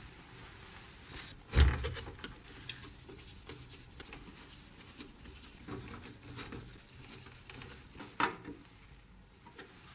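Clicks, taps and knocks of computer parts being handled during a PC build, with a loud thump about one and a half seconds in and a sharper knock around eight seconds.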